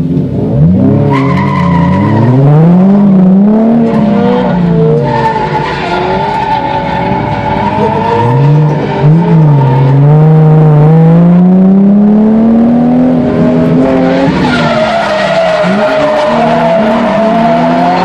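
Nissan 350Z's V6 engine heard from inside the cabin, revving hard from a standing start, its pitch climbing and dropping again and again with gear changes and throttle lifts. Tyres squeal in the second half as the car drifts.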